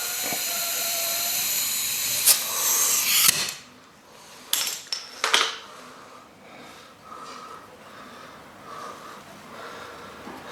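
Compressed air hissing into a new motocross rear tyre through the valve stem with the valve core removed, to blow the tyre up quickly and seat its bead on the rim. The hiss cuts off suddenly about three seconds in, followed by a few sharp clicks.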